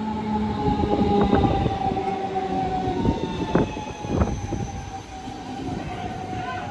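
DB class 425 electric multiple unit pulling into a platform as it slows, its electric drive giving a steady whine that slides slowly down in pitch. A few sharp clacks from the wheels on the track come about a second in and again around three and a half and four seconds in.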